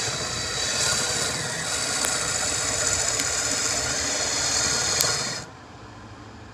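Electric drill spinning a hickory dowel through a dowel-cutting die, the die's blade shaving the wood down from half an inch to 3/8 inch; a steady running hum with rattling. The drill stops about five and a half seconds in, leaving only a faint background hum.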